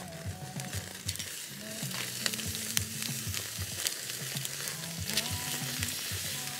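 Wood campfire burning under a wire grill, a steady hiss with frequent sharp crackles and pops, as chicken and vegetable kebabs sizzle over the open flames.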